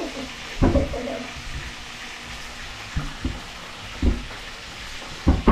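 Small fish frying in hot oil in a pan, a steady sizzle, broken by a few short dull knocks.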